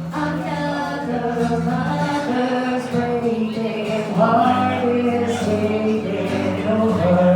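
A voice singing a held, sustained melody over acoustic guitar.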